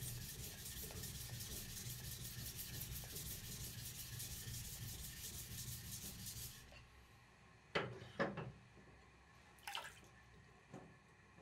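A small stone rubbed rapidly back and forth across the wet face of a whetstone, a steady gritty scraping that stops about two thirds of the way in. Then a few short splashes of water as a hand and a knife are dipped into a tub.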